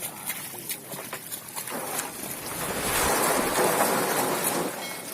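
Water of a small river rushing and splashing, a steady hiss with small clicks that swells louder about three seconds in and eases off near the end.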